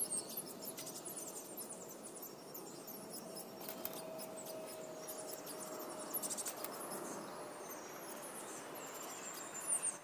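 Blue tit calling at a nest box: a quick run of very high, thin chirps and short falling notes, with a few sharper calls near the start, about six seconds in and just before the end.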